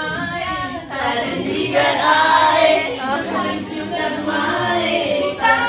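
People singing a song unaccompanied, with no instruments.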